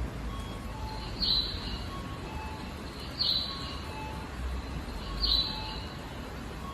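Three identical short high chirps, each falling in pitch, exactly two seconds apart: a recorded bird-call guidance signal of the kind Japanese stations play for visually impaired passengers, over a faint low rumble.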